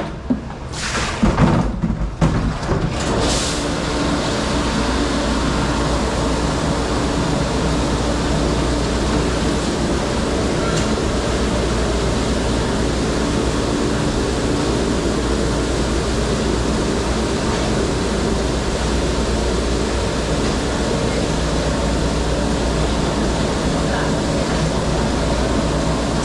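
Dish-room noise in a commercial kitchen: a steady, loud rushing roar with a constant low hum, like dish machinery and running water. A few knocks and clatters come in the first couple of seconds.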